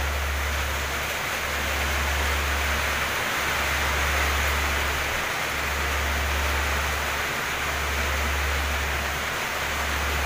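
Heavy tropical rain pouring down in a steady, even hiss, with a low steady rumble underneath.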